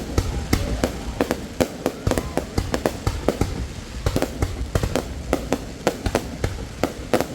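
Aerial fireworks bursting in a rapid, irregular barrage of bangs, about two or three a second, with a low rumble between them.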